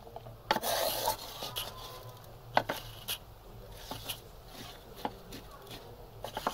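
A wooden spatula stirring chopped vegetables in an aluminium pan, with irregular knocks and scrapes against the metal and a longer scrape about half a second in.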